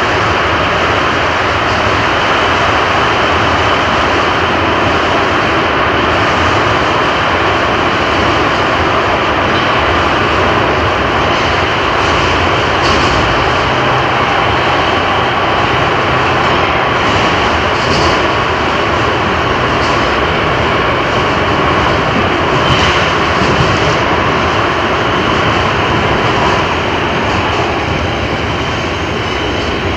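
Rotterdam Metro electric train running, a continuous loud rumble with a faint steady whine that fades near the end.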